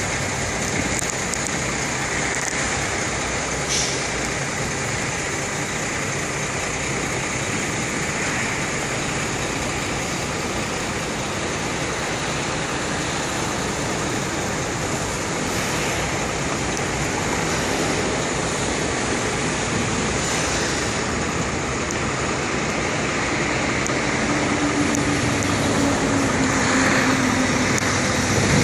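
Steady road traffic noise from vehicles, among them a heavy truck, driving past on a road, with an engine hum standing out in the last few seconds.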